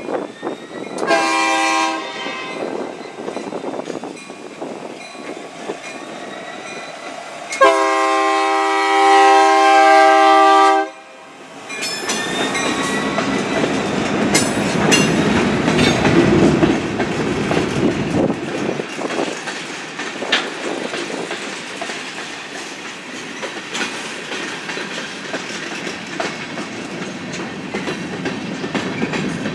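Union Pacific diesel locomotive sounding its horn: a short blast about a second in, then a long blast of about three seconds that cuts off suddenly. The locomotive then rumbles past close by and covered hopper cars roll over the crossing, wheels clicking on the rails.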